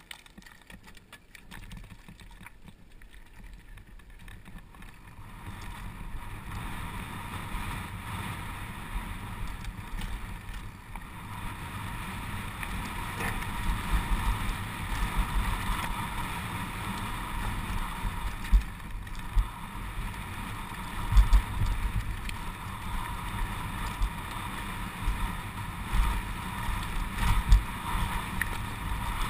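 Downhill mountain bike rolling over a dirt and gravel trail, with wind rushing over the camera microphone. Quiet at first, it grows louder as the bike picks up speed after about five seconds, with occasional low thuds from bumps in the trail.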